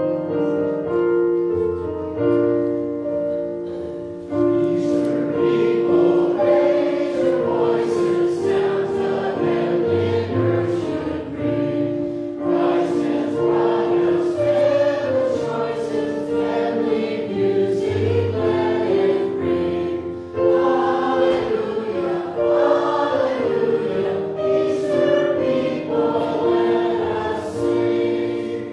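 Piano plays a short introduction, and about four seconds in a congregation starts singing a hymn with the piano accompanying.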